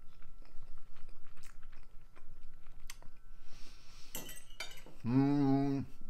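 Cutlery clicking and clinking against a plate of curry and rice while a mouthful is eaten. Near the end comes a man's held 'mmm' hum of about a second.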